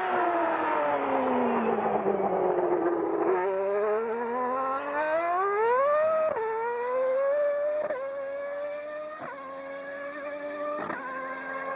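Ferrari F93A Formula One car's V12 engine at high revs as it passes and pulls away. The pitch sinks at first, then climbs in sweeps, each broken by a sudden drop at a quick upshift, about every one and a half seconds.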